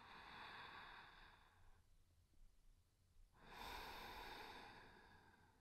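A woman's soft, close-miked breathing: two long breaths, one at the start and another about three and a half seconds in.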